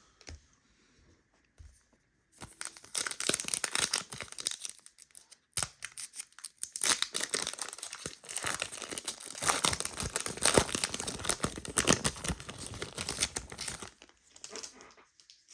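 A foil-wrapped trading card pack being torn open and its wrapper crinkled, a dense crackling rustle that starts about two seconds in, pauses briefly, and runs on until near the end.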